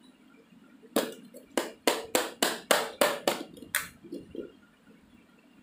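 A child's hand slapping the bottom of an upturned plastic bucket on a stone floor, about nine quick sharp taps, three or four a second, that stop about a second before the end. The tapping loosens the moulded sand inside so that it comes out in one piece.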